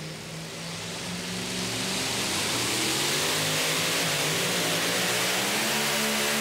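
Supercharged engine of a two-wheel-drive pulling truck with a Chevrolet S10 body, running hard under full load as it pulls a weight-transfer sled. It grows louder over the first two seconds, its pitch wavers in the middle, then it holds steady and loud.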